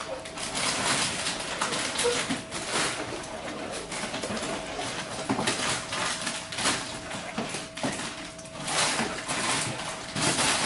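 A spoon stirring and scraping in a pot of rice porridge, with irregular knocks against the pot over a faint steady hum.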